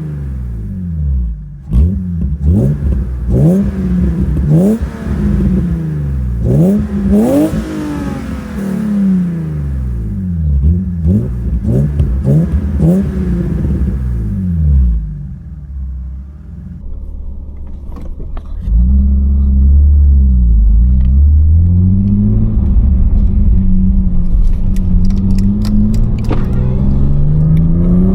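BMW E36 325i's M50B25 2.5-litre inline-six through a Supersprint race exhaust, blipped again and again in quick free revs that rise and fall. A little past halfway it changes to the car pulling away under load, louder and steadier, the engine note climbing through the gears, heard from inside the cabin with the windows up.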